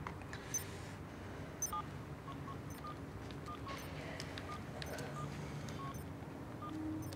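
Telephone keypad beeps as a number is dialed: about ten short beeps, irregularly spaced over several seconds, with a couple of faint clicks near the start.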